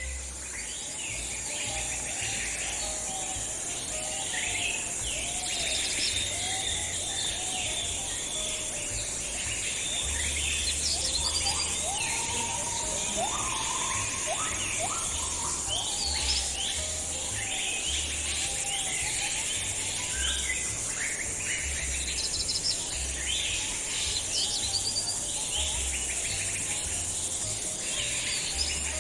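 A chorus of many birds calling and chirping at once: quick high chirps and trills, with some lower gliding calls among them. Underneath runs a steady high hiss and an on-and-off low rumble.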